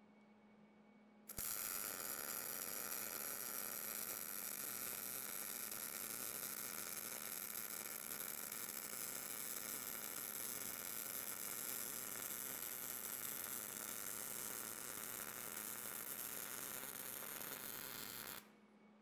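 MIG welding arc running steadily as a bead is laid along a steel joint. It strikes about a second in and cuts off abruptly shortly before the end.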